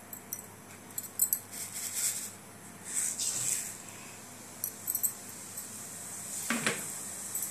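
Phutana (tempering spices) tipped into hot oil in a steel kadai, sizzling and spluttering in short spurts, with light clinks of metal utensils against the pan and a knock near the end.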